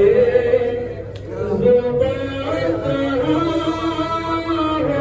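A man chanting a noha, the unaccompanied Shia mourning lament of Muharram, into a microphone, in long, wavering held notes with no instruments. A single short, sharp click sounds about a second in.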